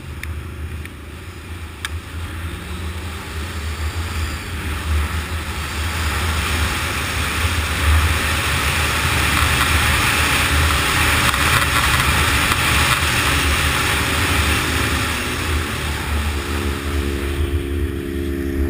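Arctic Cat M1100 Turbo snowmobile engine running under throttle while riding over snow, with a broad rush of noise over it. It grows louder through the middle and eases near the end, where a steady pitched engine hum comes through.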